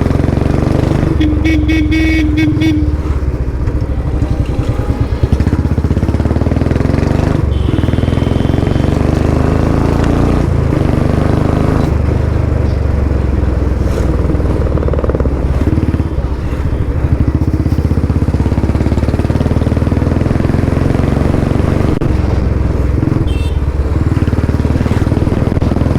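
Royal Enfield Bullet 350's single-cylinder engine running loud through a modified long 'Punjab' exhaust while being ridden, its note rising and falling as the throttle is opened and closed. Only a few light pops come from the exhaust: the engine is not yet warm enough for the full backfire.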